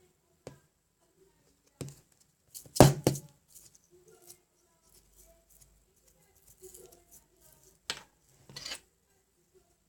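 Scattered sharp clicks and knocks of small objects being handled, with faint rustling between; the loudest pair comes about three seconds in and another pair near the end.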